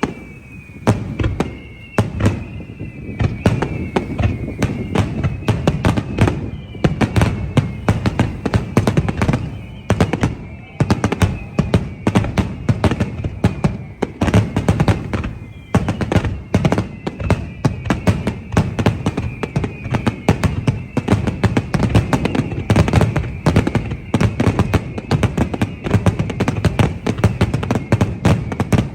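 A dense fireworks barrage: shells bursting in rapid, overlapping bangs without a break, with a high tone that falls slowly and starts again every few seconds above them.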